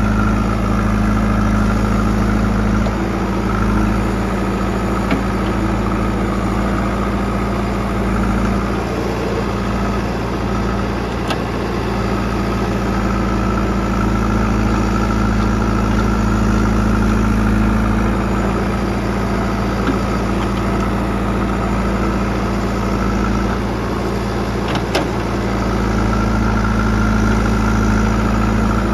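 JCB 3DX backhoe loader's diesel engine running steadily, its note easing off slightly a couple of times, with a few sharp clicks or knocks.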